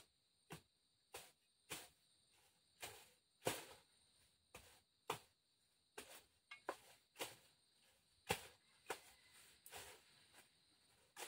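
Bolo (machete) slashing through grass and brush, a sharp cutting stroke about every half second to a second, some twenty strokes in all.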